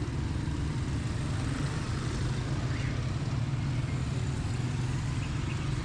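Busy street ambience: a steady low hum of motor vehicle engines running nearby, with traffic noise over it.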